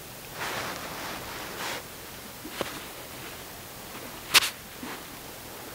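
A small topwater plug twitched on the water surface, giving short sharp pops, the loudest about four seconds in, between soft rustles of a nylon down jacket.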